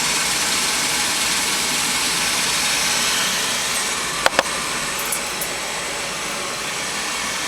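A Lennox Signature Collection 80% gas furnace starting up: a steady rushing whir of its fan, with two sharp clicks about four seconds in, after which the sound eases slightly. The burner has not yet lit.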